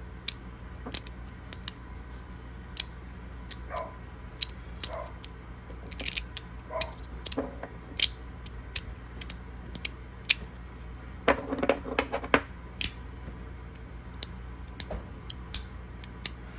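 Magnetic fidget slider's plates being slid and snapped by hand, giving irregular sharp clicks with a quick flurry about two-thirds of the way through.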